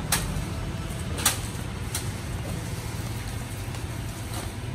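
Steady low hum of an idling truck engine, with a few sharp chops of a machete into sugarcane stalks, the strongest about a second in.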